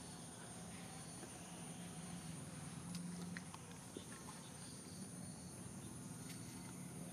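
Outdoor ambience with a steady high-pitched insect drone, a low hum underneath and a few faint scattered ticks.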